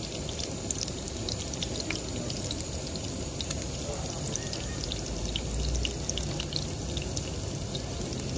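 Grated zucchini fritters frying in a pan of hot oil: a steady sizzle with many small crackles and pops.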